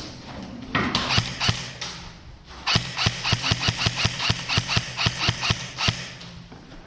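Airsoft gun firing: a few shots about a second in, then a fast, even string of about five or six shots a second for about three seconds.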